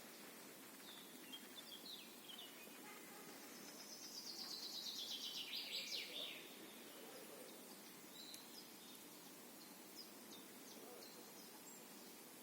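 Songbirds singing faintly: near the middle, one bird gives a louder song of rapid repeated notes that fall in pitch over about two and a half seconds, and short scattered chirps from other birds come before and after it, over a steady faint outdoor hiss.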